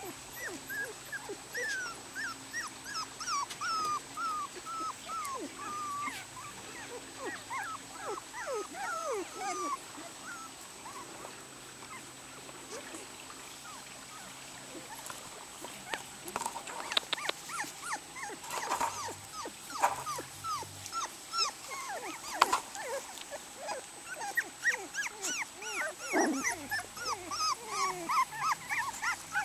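Young Norrbottenspets puppies whimpering and squeaking as they play, a steady run of short high whines, busier and louder in the second half with a few sharper yips.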